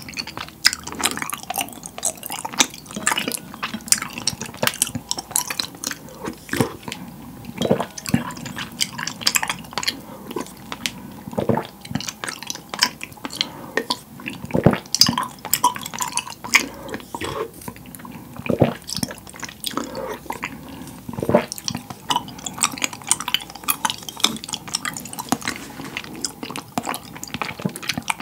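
Close-miked eating sounds: a wooden spoon stirring and scooping taro milk tea with tapioca pearls in a glass bowl, the liquid dripping and sloshing, then eating from the spoon and chewing the chewy pearls. Many small sharp clicks and wet smacks follow one another throughout.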